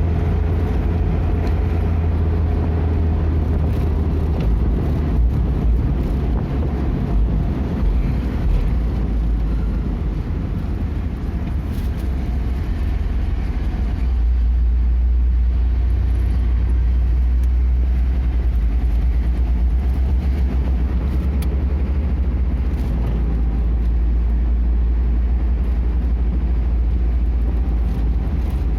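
Vehicle on the move: a steady low road and engine rumble.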